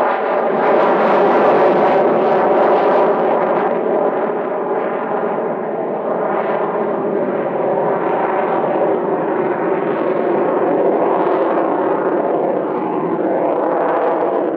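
Jet noise from a MiG-29M OVT's twin RD-33 turbofans with thrust-vectoring nozzles, heard from the ground during its flying display. It is loud and continuous, with a ringing tone and slowly sweeping, rising and falling shades of pitch as the aircraft manoeuvres.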